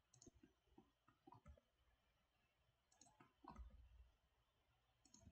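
Faint, scattered clicks of a computer mouse and keyboard, with a small cluster of them a little past the middle.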